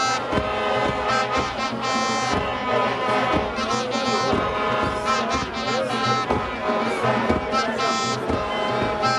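Music with brass horns playing held notes over repeated drum hits.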